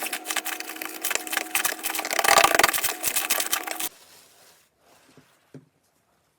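Crunchy slime being squeezed and worked by hand, giving a dense crackle of many small pops that stops abruptly about four seconds in. Only a few faint soft sounds follow.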